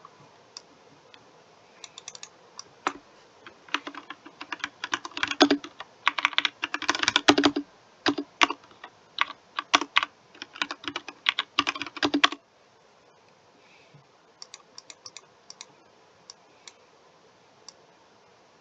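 Typing on a computer keyboard: a quick, uneven run of key clicks for about ten seconds that stops abruptly, then a few fainter, scattered clicks.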